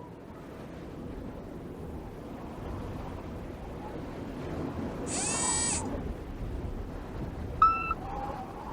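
Cartoon sound effects: a low rumble that slowly builds, a brief pitched squeal that bends in pitch about five seconds in, then short electronic beeps about once a second near the end.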